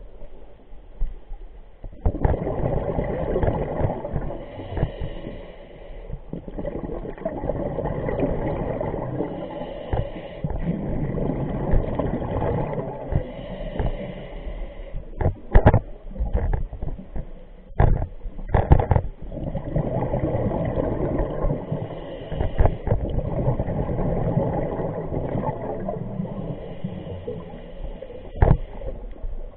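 A scuba diver's regulator exhaling, recorded underwater: bubbling bursts lasting a few seconds each, with quieter inhale pauses between them. A few sharp knocks come around the middle.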